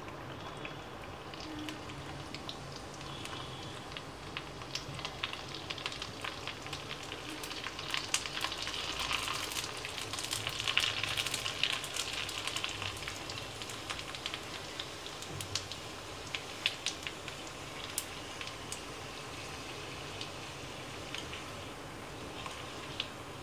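Puris deep-frying in hot oil: a steady sizzle with many sharp crackles and pops, busiest and loudest about halfway through.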